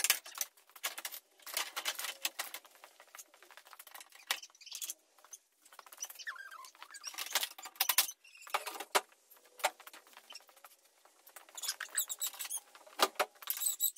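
Metal hand tools and loose parts clicking, clinking and rattling in irregular bursts as they are handled, with a few short squeaks.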